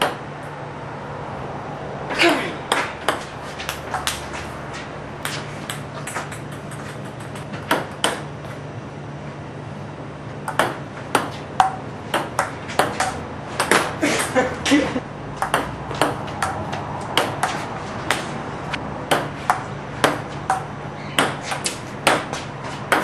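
Table tennis ball clicking off the paddle and the table in a fast, uneven rally of sharp pings, starting about two seconds in, over a steady low hum.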